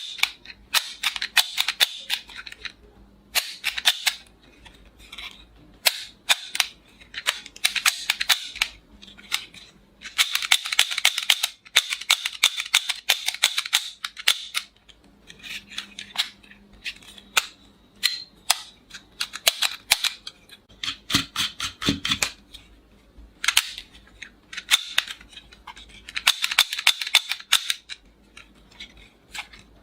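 Plastic toy revolver mechanism clicking and snapping, with single sharp clicks and fast runs of clicks lasting a second or more, repeated again and again.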